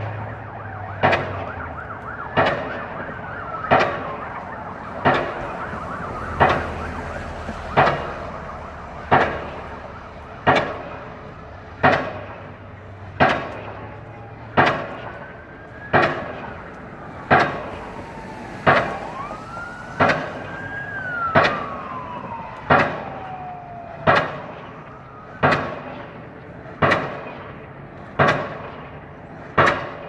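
Pile driver hammer pounding a pile in steady, even blows, about one every 1.3 seconds, each strike ringing briefly. Behind it a siren wails slowly up and down.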